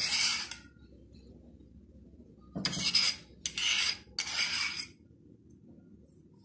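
Metal spoon scraping against a bowl: one short scrape, then after a pause of about two seconds three more scrapes in quick succession.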